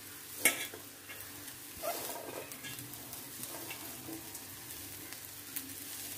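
Handfuls of chopped pumpkin leaves dropped into a hot metal pan onto frying coconut masala, with a faint sizzle underneath. There is a sharp rustling knock about half a second in and a smaller one near two seconds.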